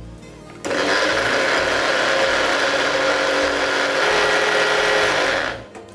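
Electric kitchen mixer grinder (mixie) running at speed, grinding curd, lime juice and greens into a green paste. It starts suddenly about half a second in, runs steadily for about five seconds, and winds down near the end.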